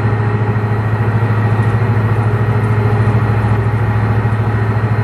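A boat's engine running steadily, a loud, even low hum.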